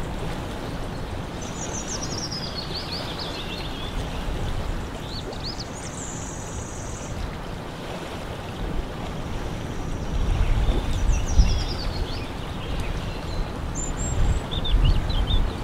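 Lakeside ambience: a steady wash of outdoor noise with a bird singing several short phrases of quick descending chirps and trills. Low rumbles swell up about two-thirds of the way in and again near the end.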